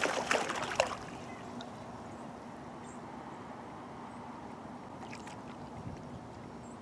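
Faint, steady rush of flowing river water, with a few light clicks in the first second and a couple more about five seconds in.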